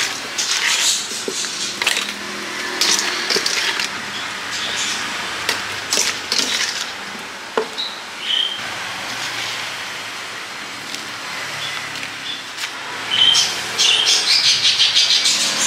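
Spoon scraping and tossing cut fruit in a stainless steel bowl, with scattered clatters and a few short high squeaks. Near the end comes a dense run of quick clicks, the loudest part.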